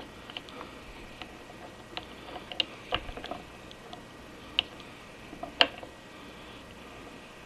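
Scattered light metal clicks and taps as small steel parts of an Atlas 10F lathe apron's half-nut mechanism are handled and fitted by hand, with a few sharper clicks in the middle.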